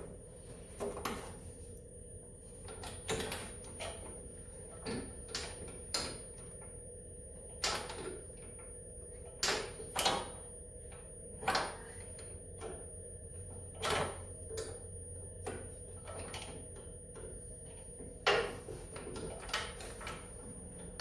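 Irregular sharp clicks and light knocks of metal on metal as a wrench and a loosened starter bolt are worked on a snowmobile engine, one every second or so, over a low steady hum.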